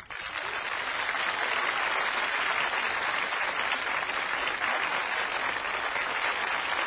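Large audience applauding, starting abruptly and keeping up at a steady, dense level.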